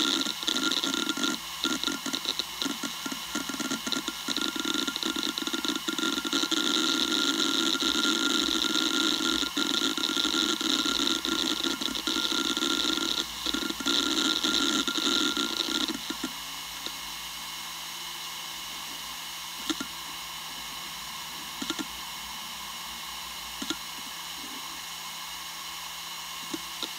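Western Digital Raptor WD1600ADFD 10,000 rpm hard drive running, a steady whine-and-hiss with a dense, uneven crackle over it. About sixteen seconds in the crackle and hiss drop away abruptly, leaving a quieter steady hum broken by a few single clicks.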